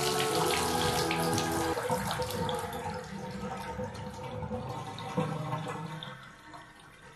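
Water from a bathtub spout running into the tub over a steady pitched tone, which stops about two seconds in. The water then drains away, fading out. The tub drain, newly cleared of a grout clog, is draining freely with no backing up.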